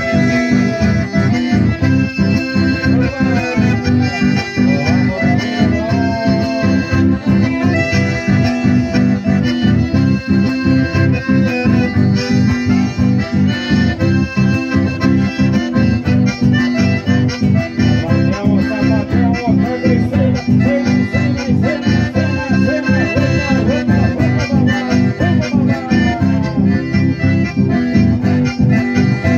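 Live chamamé: two button accordions playing the melody over acoustic guitars strumming a steady, quick beat.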